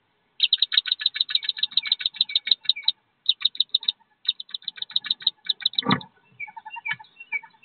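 Wood duck ducklings peeping inside the nest box: rapid, high, short peeps about eight a second, in three runs. A single thump comes about six seconds in, followed by a few softer, lower calls.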